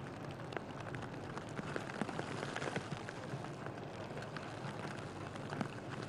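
Blizzard sounds: a steady hiss of wind-driven snow, dotted with many small sharp ticks like grains striking surfaces.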